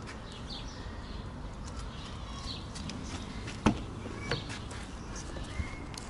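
Outdoor ambience of small birds chirping now and then over a low steady background hum, with one sharp knock a little past halfway and a fainter one just after.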